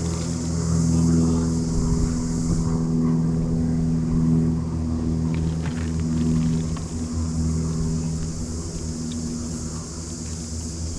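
A large engine running steadily, heard from on board, giving a low hum of several pitches with a steady hiss above it.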